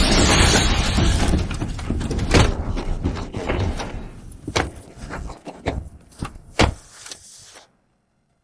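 Anime fight sound effects: a loud rushing noise at the start, then a series of sharp, separate impacts that grow sparser and fainter before cutting off into silence near the end.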